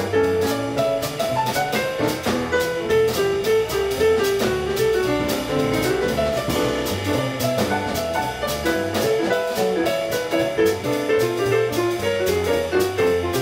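Small jazz group playing live, with a piano line over double bass and drum kit and cymbal strokes on a steady beat, heard from the back of a large hall.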